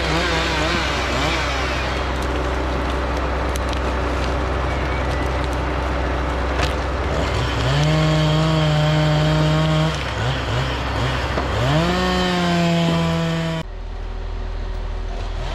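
Diesel engines of forestry machines, a converted Rottne H20 with winch among them, running under hydraulic load. The engine pitch climbs and holds high for a couple of seconds twice, then gives way abruptly to a lower, steadier engine sound near the end.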